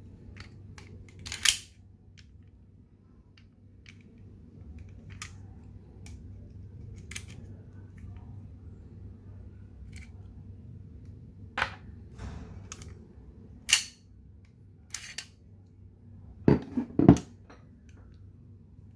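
Scattered sharp metallic clicks and snaps from a Colt 1911 CO2 BB pistol being taken apart by hand as its slide is worked and lifted off the frame, about a dozen in all. The loudest comes about one and a half seconds in, and a quick run of three or four clicks comes near the end.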